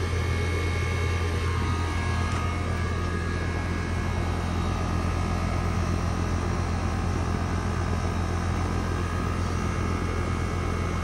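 Rheem RA14AY60 5-ton air-conditioner condensing unit running steadily up close, its compressor and condenser fan giving a constant low hum.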